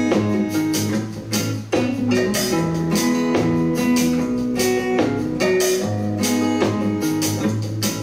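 Guitar-led music with drums and a steady beat, played back through a Sbode Bluetooth speaker as a sound test.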